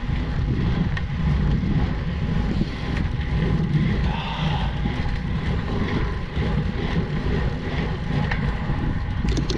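Steady wind noise on the microphone with a low rumble as a road bicycle is ridden along.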